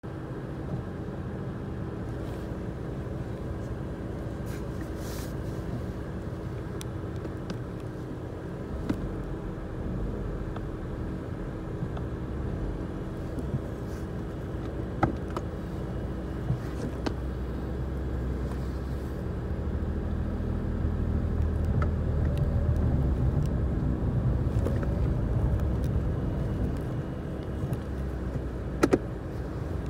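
Car heard from inside the cabin while driving: a steady engine hum and road rumble that grows louder for several seconds after the middle, with a few light clicks and knocks.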